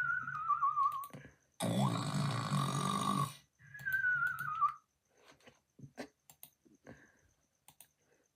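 Snoring with a whistle: a wavering whistling tone slides down in pitch over a low rattling buzz, then a loud, noisy breath of about two seconds, then a second falling whistle. A few small snuffles and clicks follow near the end.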